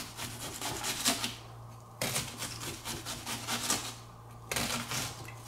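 Chef's knife slicing down through a scored red onion onto a plastic cutting board, dicing it. Quick tapping cuts come in three runs, with brief pauses between them about a second and a half in and about four seconds in.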